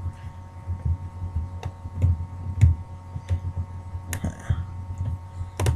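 Scattered clicks and knocks of plastic and metal laptop parts being handled and pried apart, with dull low thumps, over a steady electrical hum.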